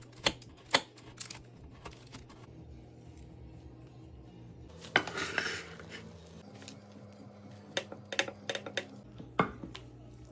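Metal fork clicking and scraping against baked spaghetti squash and a ceramic baking dish, in scattered sharp clinks near the start and a run of them in the last few seconds while roasted tomatoes are mashed. A brief rustling noise comes about five seconds in, over faint background music.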